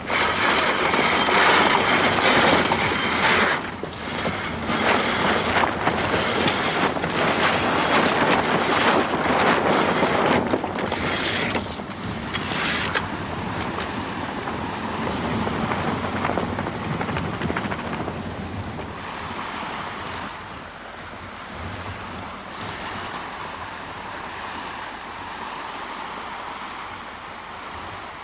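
A boat under way on open water. A loud rushing of wind and water, broken by a few short dips, runs for about the first thirteen seconds, then settles to a softer, steady wash of waves.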